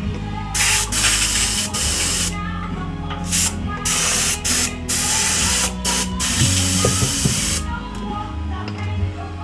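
Aerosol spray can hissing in a string of bursts of up to about two seconds each, stopping about three-quarters of the way in, with music playing underneath.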